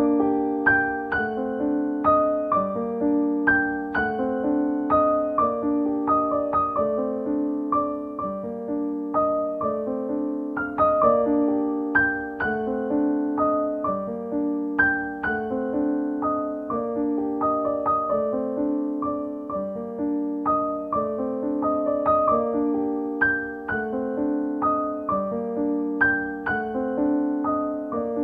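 Background piano music: a repeating pattern of single notes over a lower note pair that returns about every two seconds.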